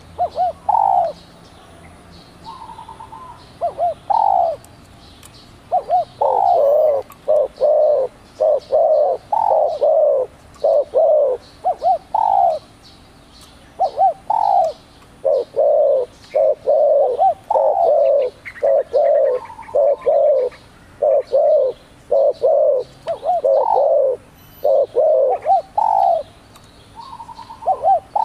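Spotted dove cooing: long runs of short, throaty coos, about two a second, broken by a few brief pauses.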